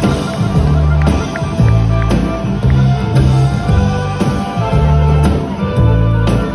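Live band music heard from the audience with no singing: a steady bass line and drums with guitar over them.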